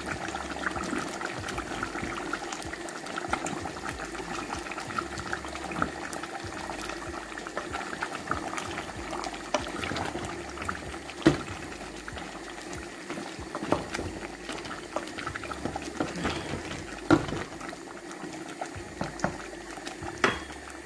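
Chicken curry with potatoes bubbling and crackling in a pot on a gas stove. A few louder knocks stand out about halfway through and near the end.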